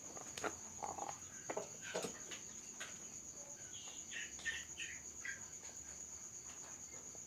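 Crickets chirring steadily, a high, evenly pulsing trill, with scattered faint clicks and rustles over it.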